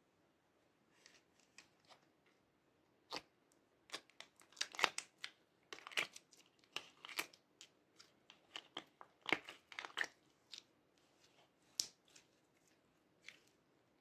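Hands squeezing and working fluffy mint-green slime, making irregular sharp clicks, crackles and small sticky pops. They start about a second in, come thickest in the middle and thin out near the end.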